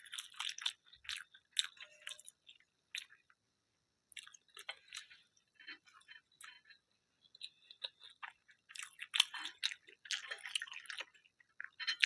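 A person chewing food, with irregular wet mouth clicks and lip smacks and a short pause about three seconds in.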